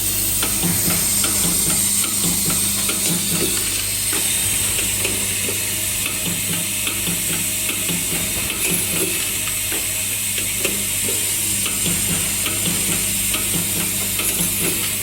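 QCW fiber laser welding machine running: a steady electrical hum under a continuous sizzling crackle of small ticks, with a regular low pulse about twice a second.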